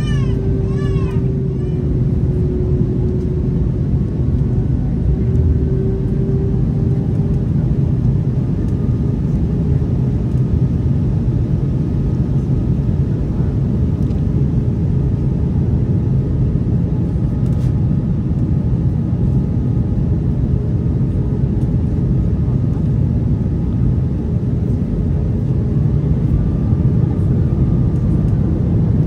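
Cabin noise of an Airbus A319 with IAE V2500 engines in flight: a steady, low rush of airflow and engine noise, with faint steady hums.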